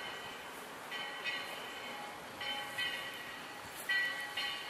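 Railroad crossing warning bell ringing at a lowered crossing gate, striking in pairs about every second and a half.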